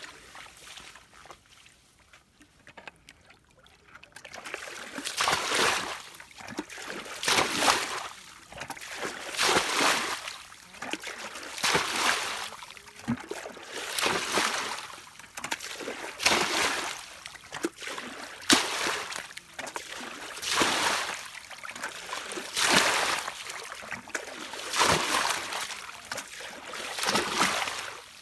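A plastic bucket bailing muddy water out of a shallow pool: a scoop and a splashing pour about every two seconds, starting a few seconds in.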